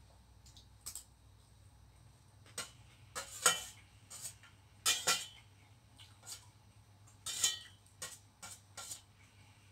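Metal spoon clinking and scraping against a stainless steel bowl while eating: about ten irregular clinks, each with a short metallic ring, the loudest between about three and eight seconds in.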